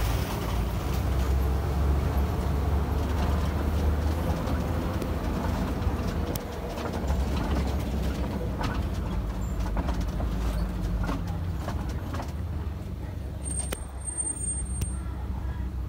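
Safari ride truck's engine running with a steady low rumble as it drives, with scattered rattles and knocks from the vehicle's body.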